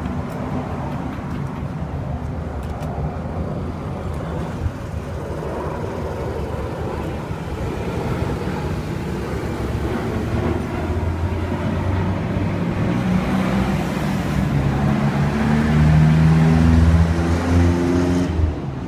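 Road traffic rumble. From about halfway a motor vehicle's engine, steady in pitch, grows louder, then drops away sharply shortly before the end.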